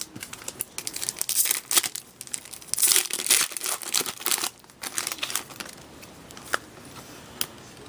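Crinkling and tearing of a foil trading-card pack wrapper being handled and opened. It is busiest through the first five seconds, then thins to a few light crackles and clicks.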